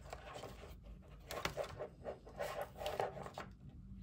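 Paper and card rustling, with a few light clicks and taps, as a savings-challenge binder page and a small card booklet are handled.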